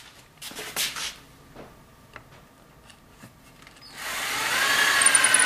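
A few light knocks and clicks, then about four seconds in a power drill starts up and runs under load. Its whine drops slowly in pitch as it drives a screw into the wood of a table saw sled.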